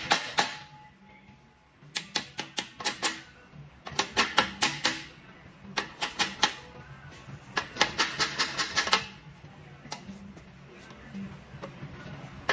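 Hammer striking an exhaust pipe band clamp: quick metallic taps in about five bursts of several rapid blows each, with short pauses between.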